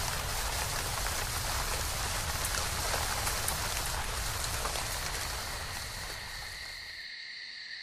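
Steady rain, an even hiss with faint patter, fading out about six seconds in. Near the end, insects trill steadily at a high pitch.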